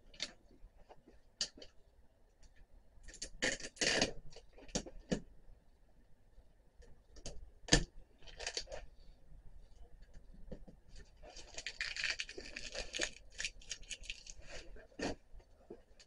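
Handling noises: scattered knocks and clicks, with short stretches of scraping and rustling about four seconds in, near eight and a half seconds, and for about two seconds around twelve seconds in. A sharp knock just before eight seconds is the loudest.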